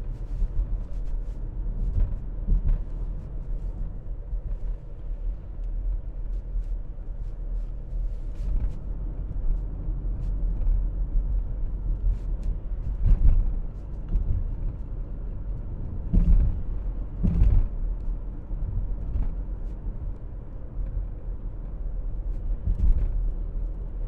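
Road noise inside a moving car's cabin: a steady low rumble of tyres and engine at cruising speed, with a few short thumps partway through.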